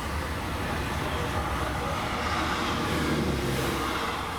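A train running: a steady low rumble under a broad rushing noise that swells slightly about halfway through and eases off near the end.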